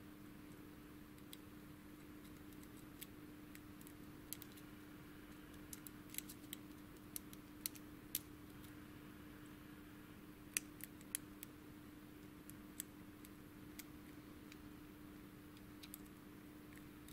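Faint, irregular metallic clicks and ticks of a lock pick working the pins of a Thirard high-security euro cylinder held under tension, over a steady hum.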